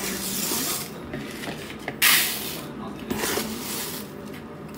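Dry rice being scooped and poured into a bowl in several short hissing rushes. The loudest pour comes about two seconds in.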